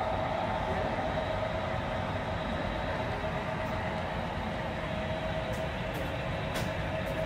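HO-scale model trains running on the layout: a steady hum with a rolling rumble underneath, and a few faint light ticks in the second half.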